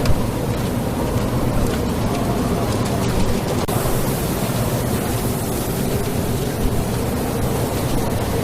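Sandstorm wind together with the running noise of a vehicle driving through it: a loud, steady rushing with a heavy low rumble.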